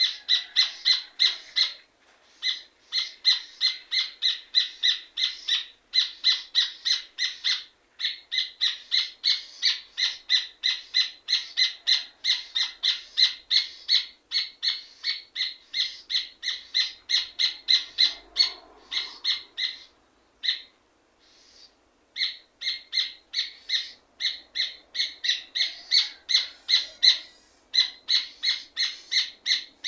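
Rufous hornero (red ovenbird) singing: long runs of loud, rapid, evenly repeated notes, about four or five a second, broken by a few short pauses.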